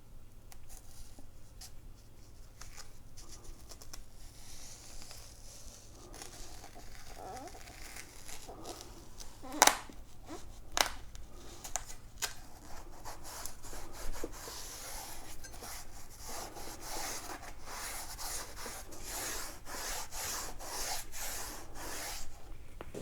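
Hands handling and pressing Velcro-backed side pads onto an electric unicycle's shell: uneven rubbing and scraping with many small clicks, and two sharp clicks about ten and eleven seconds in.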